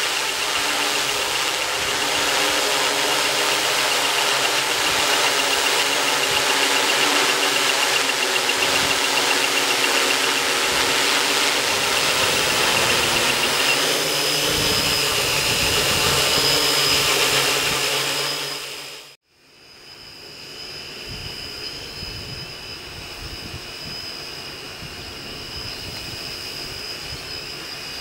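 Hexacopter's six electric motors and propellers whirring in flight, a steady hum of several tones over a rushing hiss. It breaks off abruptly about two-thirds of the way through and comes back quieter.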